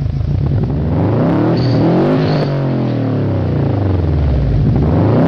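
Car engine revving, its pitch climbing and falling in long sweeps, with a few short high chirps.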